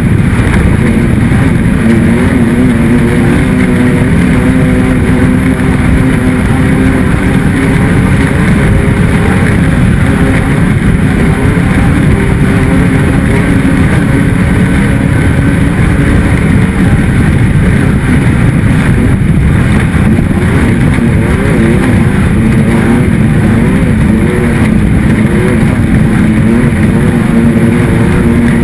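Off-road desert race vehicle's engine running hard under way, loud and continuous, its pitch wavering up and down with the throttle, over a dense rumble of driving noise.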